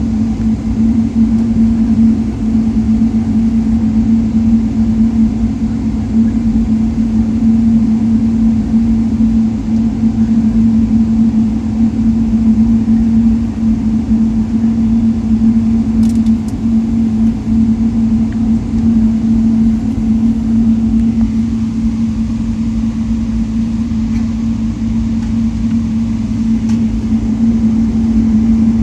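Steady cabin noise inside a Boeing 777-300 airliner taxiing after landing: the engines at taxi power and cabin air make a constant loud hum with one strong steady tone over low rumble.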